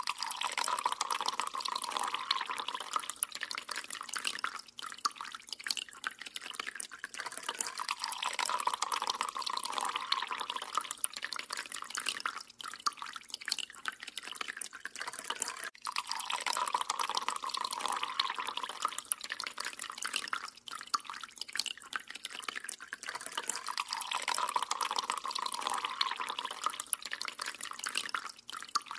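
Thin stream of water running from a kitchen tap, splashing and dripping into the sink basin. It swells louder and fades back every several seconds.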